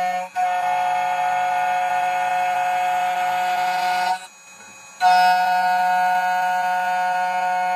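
2M2 Tank 2 Pro CNC key cutting machine running with a steady whine as it cuts a key blank to width. It stops about four seconds in and starts again about a second later.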